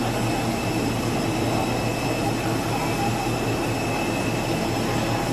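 Steady turbine noise from a jet airliner parked at the gate: a constant high whine over a low rumble, unchanging throughout.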